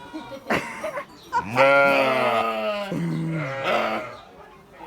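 Sheep bleating: one long wavering bleat about a second and a half in, then a second, lower-pitched bleat straight after.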